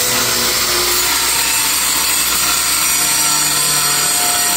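A power tool running steadily without a break, a continuous high-pitched hiss and whine.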